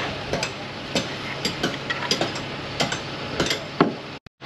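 Wooden mixing stick tapping and scraping on a mixing cup and a fibreglass part while thickened epoxy is scooped and spread: a run of irregular sharp taps over a steady low hum, cutting out suddenly near the end.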